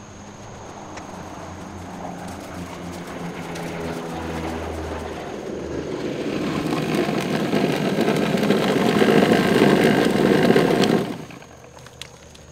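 Vibratory parts tumbler running with nuts and bolts in it: a steady mechanical noise that grows louder for about ten seconds as it is approached, then stops suddenly near the end when it is switched off.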